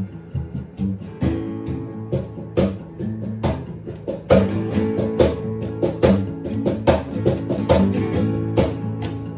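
Two guitars strumming chords, with a cajón beating time in regular strikes.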